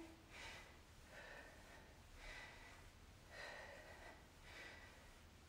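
Faint, heavy breathing of a person exercising, a short noisy breath about once a second in time with the dumbbell rows.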